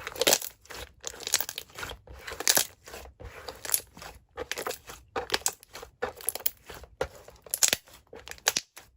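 Slime being squished and pressed by hand, giving irregular bursts of crackling, crunchy pops.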